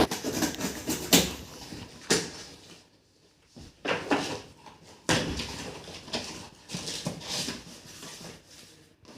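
Cardboard packaging being pulled and worked by hand: scraping, rustling handling noise with several sharp knocks, as tightly packed contents stuck in the box are worked free.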